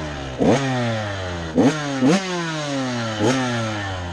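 2023 GasGas 85cc two-stroke motocross bike engine running, blipped with four quick throttle stabs that each rise sharply and fall slowly back toward idle.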